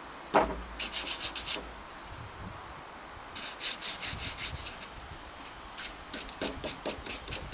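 A sharp knock, then bursts of rapid rubbing strokes of a hand tool on wood, about six strokes a second, each burst lasting about a second, as deck boards are worked for a fence.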